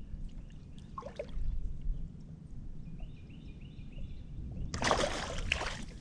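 Low steady rumble of water and wind around a fishing boat. Near the end comes a short, loud rush of splashing water.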